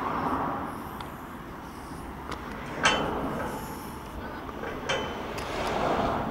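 Steady outdoor background noise beside a railway line, with two short, sharp sounds about three and five seconds in.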